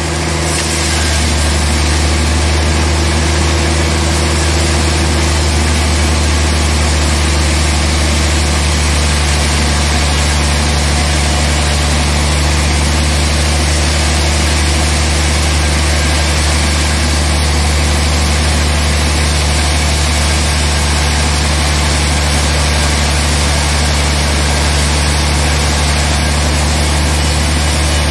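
Large band sawmill cutting a wide slab from a trembesi (rain tree) log. A steady low machine hum runs under the even noise of the blade in the wood, coming up to full level within the first second.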